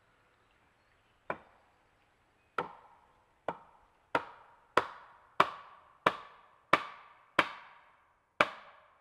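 Repeated sharp knocks of wood being struck, about ten blows with short ringing tails that come faster after the first few: a pole leg being driven into a log to build a sawhorse.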